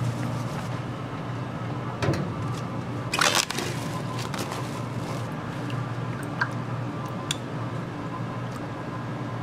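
Kitchen food-prep handling: soft wet squishing with a few light knocks and clicks, and a short rushing noise about three seconds in, over a steady low hum.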